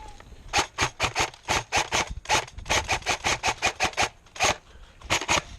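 Airsoft gun firing a rapid string of sharp shots, about six to eight a second, with a short pause near the end before a few more.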